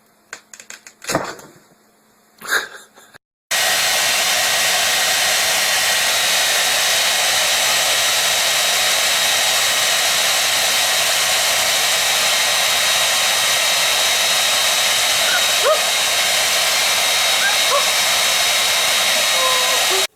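A few short knocks and clicks, then about three and a half seconds in a steady, loud blowing noise from a small electric appliance starts abruptly and runs on unchanged.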